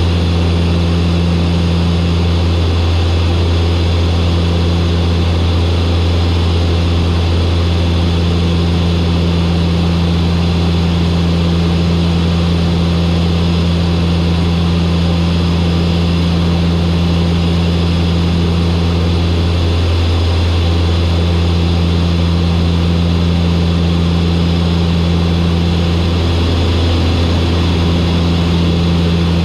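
Turboprop aircraft engines and propellers droning steadily on final approach: a deep, even hum with a higher tone above it that briefly fades out a few times.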